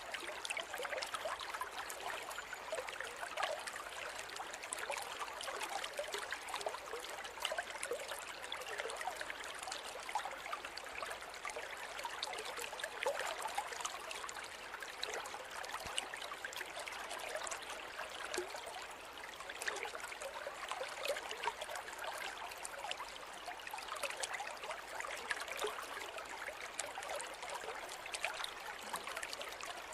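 Forest river flowing steadily, a continuous rush of water with fine splashing and trickling over stones.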